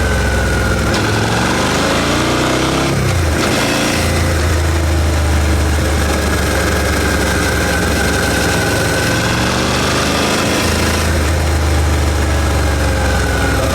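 Suzuki SV650's V-twin engine on its stock exhaust, running at low speed: its pitch climbs for a couple of seconds, drops sharply about three seconds in, then holds steady, with a short break in the tone near the end.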